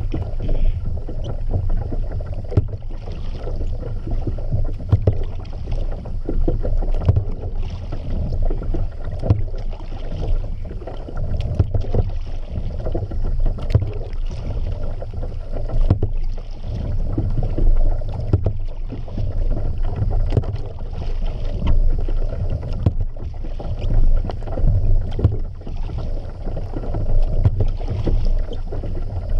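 Kayak paddle strokes in the water, a splash-like wash about every two seconds, over a steady low rumble of water and wind on the camera.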